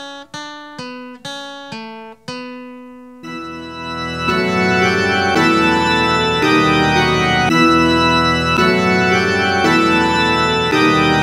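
Instrumental intro music: a run of single picked notes, about two a second, each dying away. A fuller band with sustained chords comes in about three seconds in.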